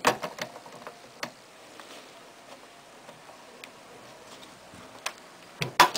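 Sparse small metal clicks and ticks from the Kleinschmidt TT-98 teletype's selector camshaft mechanism being worked by hand, as an attempt is made to slide the shaft. Near the end comes a quick cluster of louder knocks.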